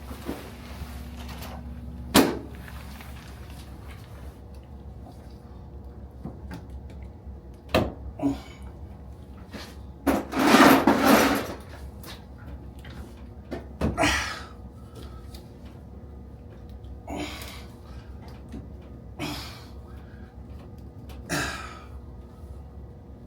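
Scattered knocks and clunks from handling plumbing pipe and fittings during a re-pipe, with one louder, rougher noise lasting about a second and a half about ten seconds in.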